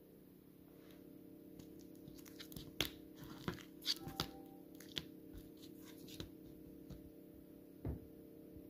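Crinkling and crackling of chocolate bars' cellophane and foil wrappers and the box's paper liner as they are handled. A cluster of sharp crackles comes between about two and a half and five seconds in, and a soft thump comes near the end.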